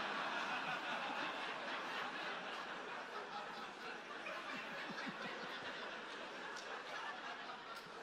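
Audience laughing, the laughter slowly dying away towards the end.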